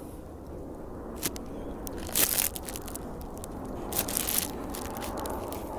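Footsteps crunching on dry straw and dirt: a few scattered crunches, the loudest about two seconds in and another about four seconds in.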